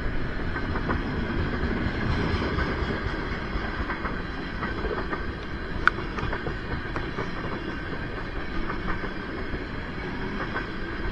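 Freight cars of a long CSX train rolling past: a steady rumble of steel wheels on rail with scattered clicks over the rail joints and one sharper click about six seconds in.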